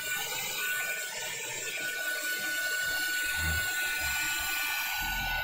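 Handheld craft heat tool running steadily, its fan blowing with a constant high motor whine, drying wet spray varnish on paper.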